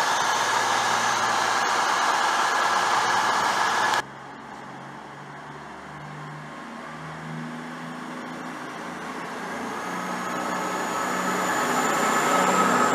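CrossCountry Voyager diesel multiple unit moving along the platform, its underfloor diesel engines and equipment making a loud steady hiss that cuts off suddenly about four seconds in. Then a second Voyager's diesel engines grow steadily louder as it runs along the platform, with a thin whine rising in pitch near the end.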